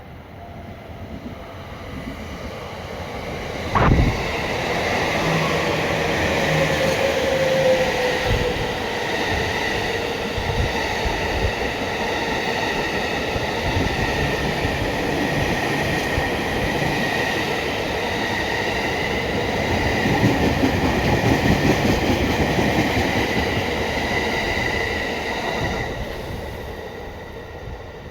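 A train passing over a railway level crossing, building up over the first few seconds, its wheels squealing in a steady high tone over the rumble and clatter of the cars. There is a sharp bang about four seconds in, and the sound fades near the end.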